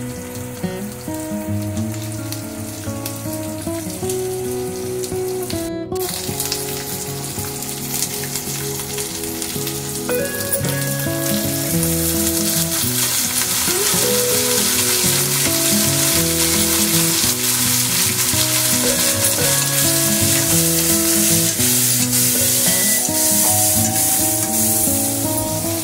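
Sliced ivy gourd (kundru) sizzling as it fries in oil in an aluminium kadhai. The sizzle grows louder about a third of the way in, and a spatula stirs the pieces near the end, over background music.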